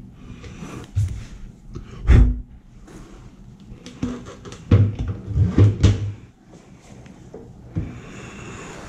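Handling knocks and clunks as a Holley dual drop-in fuel pump assembly is turned over in the hands and bumped against the fuel cell top: a single loud thump about two seconds in, then a quick run of knocks a little after four to six seconds in.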